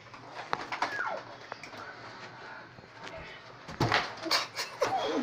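Short high-pitched squeals from children, falling in pitch, with a cluster of sharp taps about four seconds in.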